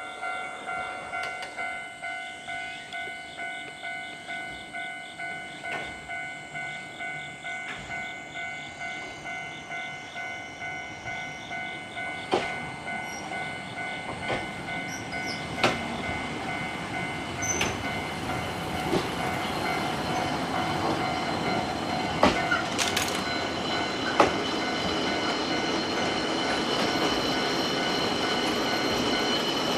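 Japanese level-crossing warning bell ringing in a steady two-strokes-a-second 'kan-kan'. From about twelve seconds in, an Ikoma Cable funicular car approaches and runs over the crossing: a rising rolling noise with sharp knocks and clicks from the wheels on the track, growing louder than the bell.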